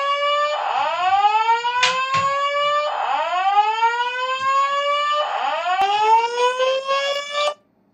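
Two System Sensor SpectrAlert Advance speaker strobes sounding the slow whoop evacuation tone of the Simplex voice evac message: a rising sweep that repeats about every two and a third seconds, three full whoops after the tail of one. It cuts off suddenly near the end as the panel is silenced.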